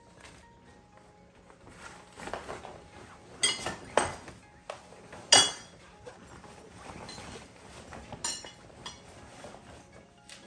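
Metal bars of a play-yard bassinet insert clinking and knocking against the frame as they are fitted, a few sharp clinks with the loudest about five seconds in.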